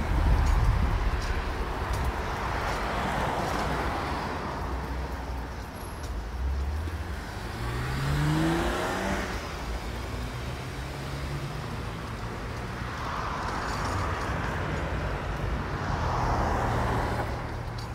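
Cars passing one after another on a city street, each swelling and fading, with one engine rising in pitch as it accelerates about eight seconds in.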